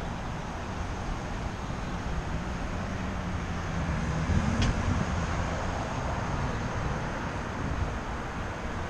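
Steady road traffic noise from the street below, swelling as a vehicle passes about halfway through, with a short high sound at the peak.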